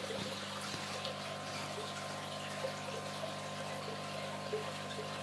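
Aquarium water trickling and bubbling, with small scattered splashes, over the steady hum of the fish room's pumps.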